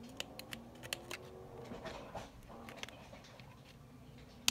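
Scissors snipping to trim the tails of a ribbon hair bow: a series of short, light, sharp clicks at irregular intervals.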